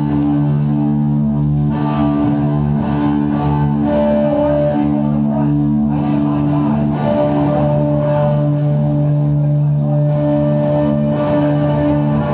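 Progressive rock/metal band recording: a guitar-led intro over steady sustained low notes.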